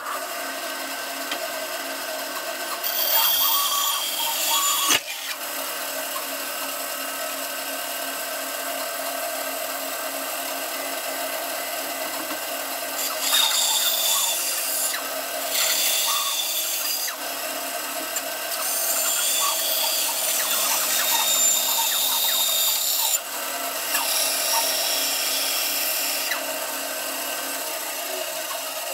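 Bandsaw running steadily, its blade cutting the excess wood off a guitar neck's headstock, louder in several stretches as the blade bites into the wood. It grows quieter near the end.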